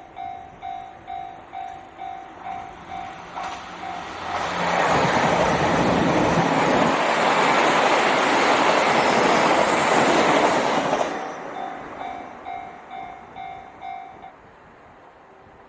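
Japanese level-crossing warning bell ringing in quick, even pulses, about two and a half a second. About four seconds in, a diesel train passes over the crossing: a loud rush of wheels on rails for about six seconds that drowns the bell. The bell then rings on alone and stops about fourteen seconds in, as the crossing clears.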